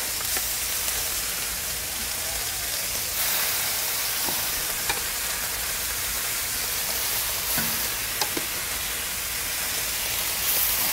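Thick-cut bacon strips sizzling steadily on a hot flattop griddle as more raw strips are laid down, with a few light clicks scattered through.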